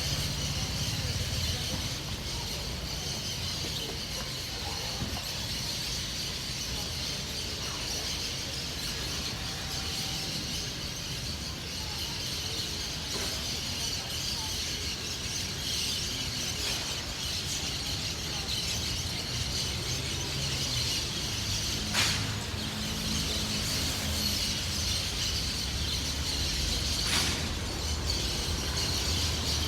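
Dense chorus of many birds chirping and twittering together, with a low steady rumble underneath and a sharp click about 22 seconds in.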